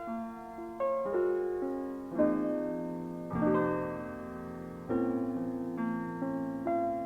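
Unaccompanied keyboard, piano-like, playing slow sustained chords in a live concert recording from cassette tape. Each chord is struck and left to ring, about six of them one after another.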